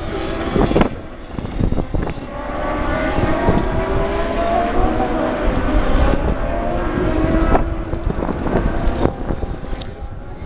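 Engines of several 1000 cc racing motorcycles lapping the circuit, several engine notes overlapping and slowly rising and falling in pitch, with wind rumbling on the microphone.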